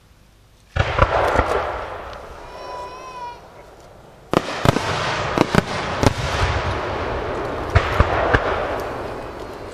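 Starmine aerial fireworks going off: a sudden volley of booming shell bursts about three-quarters of a second in, with a dense rush of noise between the bangs that dies down, then a second, louder run of sharp bangs in quick succession from about four seconds in that carries on.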